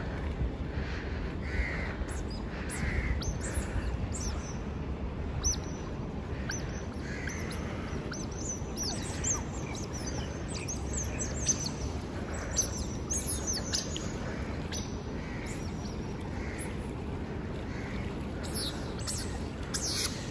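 A family of smooth-coated otters squeaking and chirping as they swim: many short, high, falling squeaks, some overlapping, over a steady low rumble.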